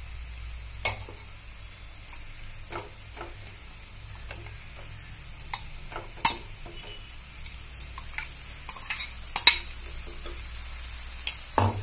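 Shallots and dried red chillies sizzling in hot coconut oil in a nonstick pan while a wooden spatula stirs and scrapes. Several sharp knocks and clinks of utensils against the pan, the loudest about six and nine seconds in, as raw chicken pieces are tipped in from a bowl.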